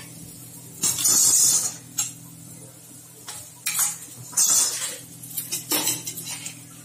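Perforated steel spatula pressing and tapping a paratha against a hot iron tawa: several separate metal-on-griddle scrapes and clinks, the loudest about a second in and halfway through.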